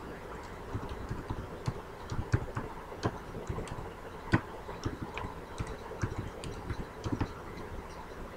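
Computer keyboard typing: irregular keystroke clicks over a steady low background hiss.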